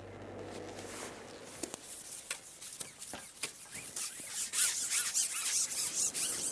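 Carbon match-fishing pole being shipped back by hand, rubbing and scraping over its pole rest with a run of irregular clicks that gets louder in the second half. Background music fades out in the first second.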